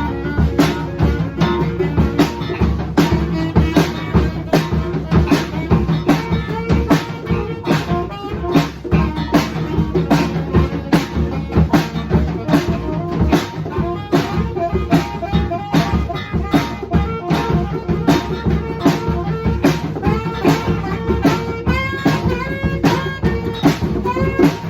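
Rock band playing an instrumental passage: a drum kit keeps a steady beat under bass and guitar, with a few bending melodic notes near the end.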